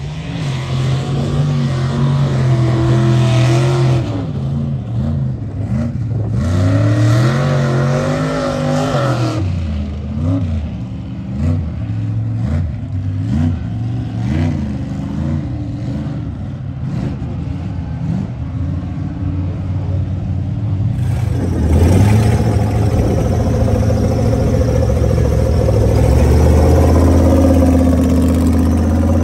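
Big mud-truck engines revving hard, the pitch climbing and falling as they push through deep mud. About 21 s in, after a cut, a mud buggy's engine runs steadily close by.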